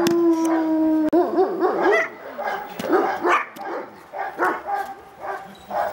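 Young Czechoslovakian Wolfdog bitch barking repeatedly at an attacking stranger, defensive aggression on the leash. A long held cry breaks off about a second in, followed by short barks about two to three a second.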